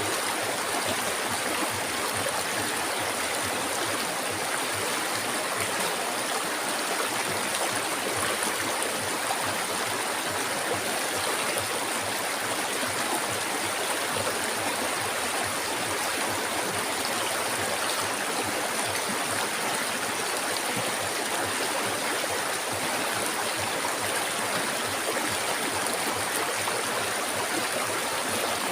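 River water flowing and rushing steadily, an even hiss with no change in level.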